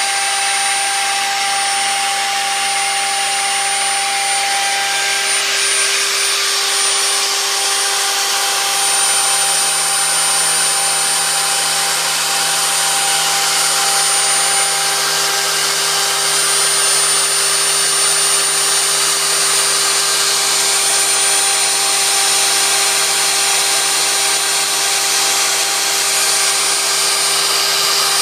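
Home-made CNC router spindle running steadily while its end mill cuts into a block of aluminium: a continuous dense hiss of cutting with a few steady tones over it.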